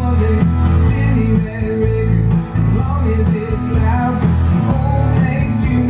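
Music with singing and strong bass, played extremely loud through a homemade boombox: a TPA3116D2 2.1 class-D amplifier board driving a 6x9 coaxial speaker and a subwoofer.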